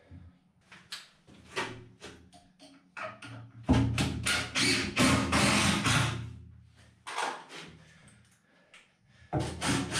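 Cordless drill/driver driving screws to fasten a wooden shelf in place: one run of the motor a little under four seconds in, lasting about two and a half seconds, and another starting near the end, with clicks and knocks of handling the shelf and tool between them.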